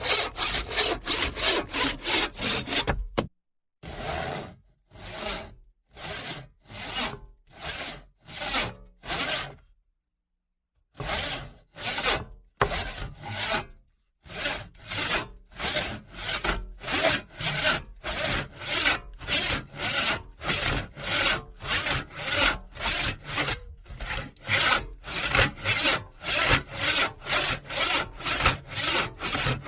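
Hand saw cutting through wood in back-and-forth strokes at changing speeds. A quick run of strokes stops abruptly about three seconds in; slower, separate strokes follow, broken by a short silence around ten seconds; after about fourteen seconds a steady, brisk rhythm of roughly two strokes a second takes over.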